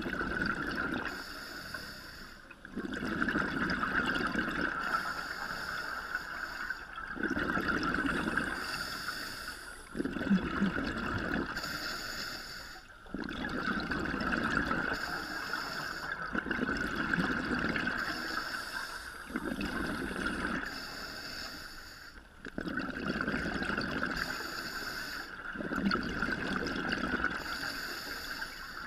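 Scuba regulator breathing heard underwater: each inhalation is a short hiss, followed by a longer bubbling, gurgling exhalation. The cycle repeats about every three seconds, eight or nine breaths in all, over a steady high-pitched hum.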